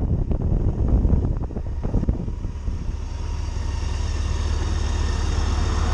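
Kawasaki motorcycle slowing to a stop, with wind and road rumble over the first two seconds or so, then its engine idling with a steady low hum.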